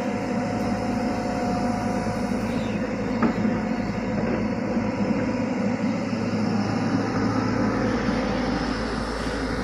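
Tata Hitachi excavator's diesel engine running steadily at work, with one brief click about three seconds in.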